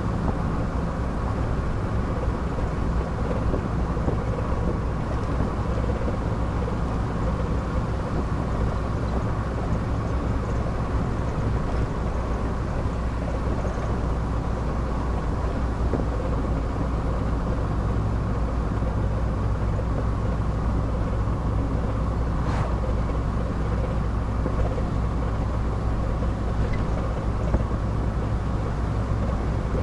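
Car driving along at a steady speed, heard from inside the cabin: a constant low engine hum under steady road noise.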